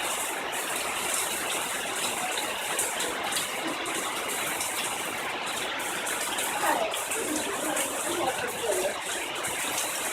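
Monsoon rain falling steadily: a dense, even hiss of rain. Faint voices come in about two thirds of the way through.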